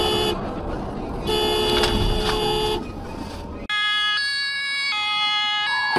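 A car horn held over road noise, sounding until about a third of a second in and again for about a second and a half from just after one second. Near the end a German ambulance's two-tone siren starts abruptly, switching between a high and a low note about every three-quarters of a second.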